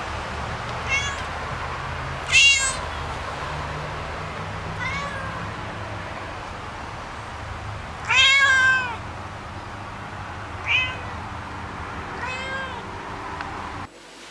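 Domestic cat meowing, six separate meows spread out, the loudest and longest about eight seconds in, over a steady low background rumble.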